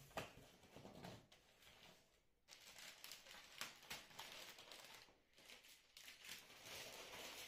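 Faint rustling and scraping of cardboard and kraft-paper packaging being pulled open and cut with a box cutter, with a brief lull about two seconds in.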